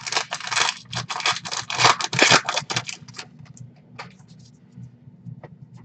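A trading-card pack wrapper being torn open and the cards slid out and handled: a dense crinkling scrape for about three seconds, then a few light ticks of cards being shuffled.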